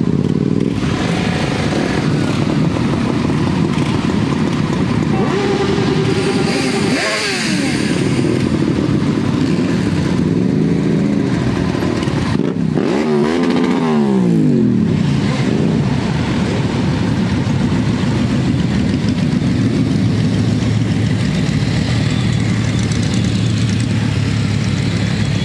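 Several motorcycle engines running at low speed in a slow group ride, a steady rumble. Twice a bike's engine pitch sweeps up and down as it revs, about seven seconds in and again around thirteen seconds.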